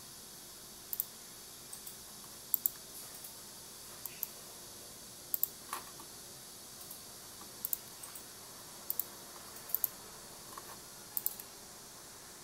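Computer mouse button clicking: about a dozen short, sharp clicks, some single and some quick double clicks, spaced a second or so apart, over a faint steady background hiss.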